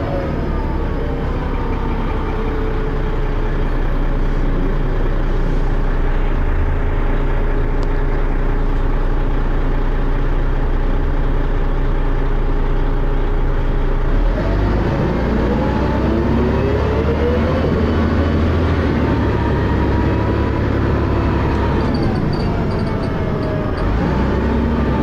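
Dennis Arrow double-decker bus engine and ZF automatic gearbox heard from on board. The engine runs steadily, then from about halfway through revs up and down in rising and falling sweeps as the bus pulls away and changes gear, on a gearbox that slips.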